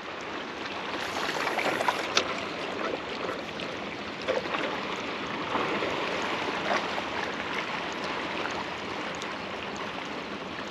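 Surface water splashing and churning, with a few sharper splashes: tarpon attacking schools of mullet at the surface.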